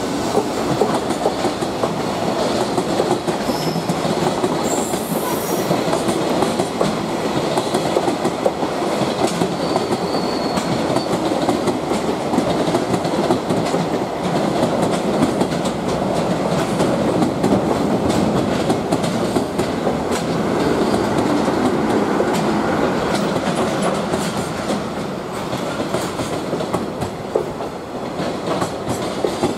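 Freight train of container flatcars and tank cars rolling past close by, its wheels clattering steadily over rail joints. The clatter eases slightly near the end.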